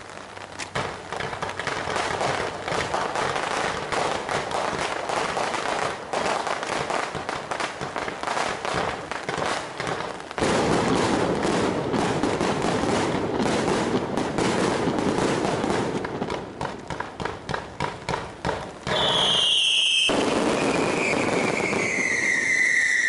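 Fireworks crackling and popping in a dense rapid barrage, louder about halfway through. Near the end, shrill whistling fireworks join in, their tone falling in pitch over the crackle.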